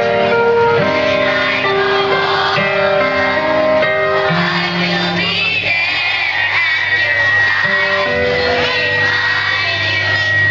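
Children's choir singing together through a microphone and PA, moving between held notes. A steady high tone holds from about six seconds in.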